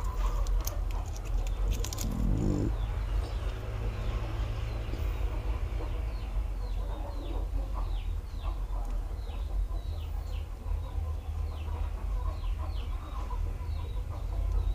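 A bird chirping, short falling chirps repeated two or three a second from about three seconds in, over a steady low hum; a few sharp clicks in the first two seconds.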